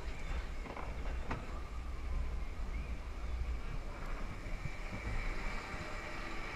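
Roller coaster train running along its track, heard from a rider's seat: a steady low rumble.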